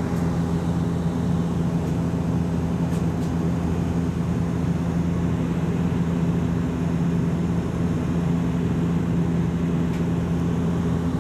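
Cabin noise inside a Bombardier Q400 turboprop airliner climbing after takeoff: the steady drone of its Pratt & Whitney PW150A turboprop engines and propellers, with a steady low hum running through it.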